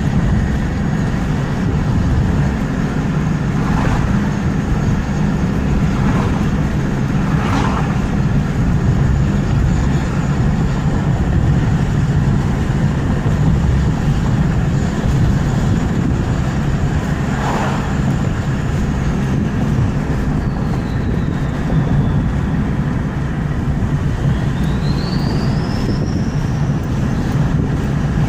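Ford F350's turbocharger whistling over the steady run of the engine: a thin high whistle holds level, glides down in pitch about two-thirds of the way through, then rises again near the end. A few short knocks are heard in the first twenty seconds.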